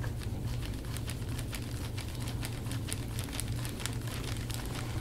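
Handheld massage roller stick with green balls being pushed back and forth over bare skin on a man's back, giving a quick irregular run of small clicks and crinkles over a steady low hum.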